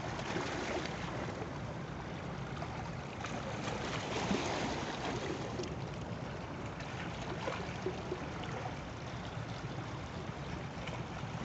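Steady rushing noise of a boat out at sea, water and motion noise without a break, a little louder about four seconds in.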